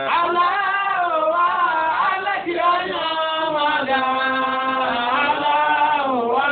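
A single voice chanting in long, drawn-out phrases, the pitch sliding up and down, with a deep downward slide near the end.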